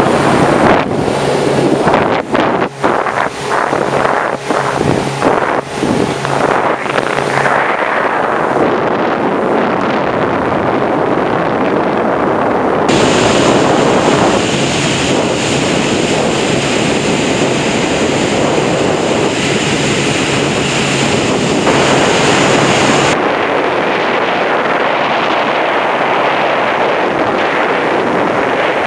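Speedboat under way: a steady engine drone under heavy wind noise on the microphone and the rush of water past the hull. The wind buffets unevenly over the first several seconds, and the sound's character shifts abruptly about 13 s and again about 23 s in.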